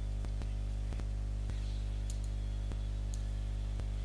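Steady electrical hum, with several faint, irregular computer mouse clicks on top.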